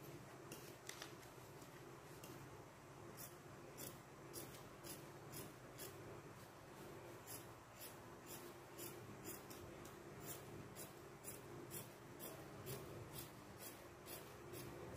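Fabric scissors cutting cloth along a paper pattern, a run of faint crisp snips about two a second.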